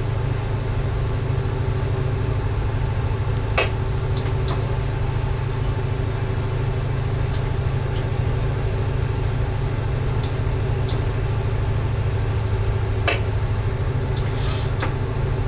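Tugboat's diesel engines running steadily, a low hum with a faint fixed whine above it. Two sharp clicks, about 4 and 13 seconds in, and a short hiss near the end.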